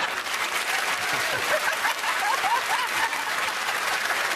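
Studio audience applauding, with some laughter mixed in.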